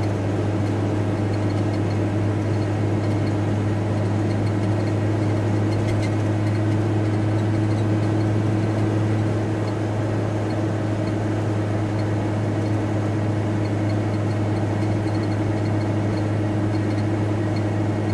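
Steady cabin drone of a VW T4 Transporter van on the move: engine and road noise with a strong, even low hum and a fainter steady tone above it.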